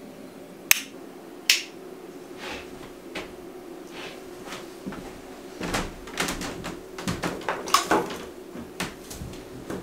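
Two sharp clicks about a second apart, then a run of lighter knocks and taps, busiest a few seconds in.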